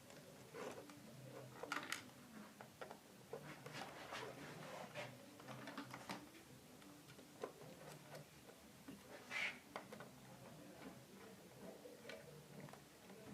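Faint, irregular clicks and light taps of electrical wires and small hand tools being handled while the wires are connected, with a louder click about nine seconds in.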